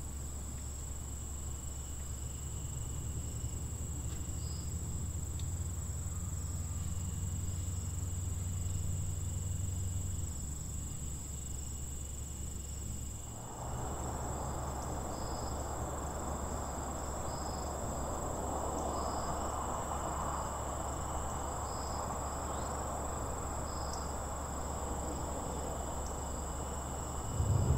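Crickets trilling steadily at a high pitch, with shorter chirps repeating just below, over a low steady rumble. About halfway through, a soft hiss comes in.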